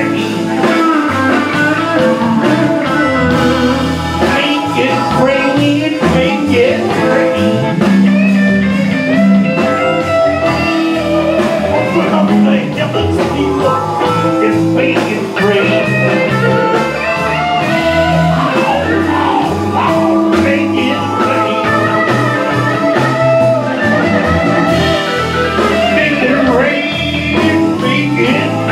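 Live blues band playing, with electric guitars and a harmonica played into a microphone.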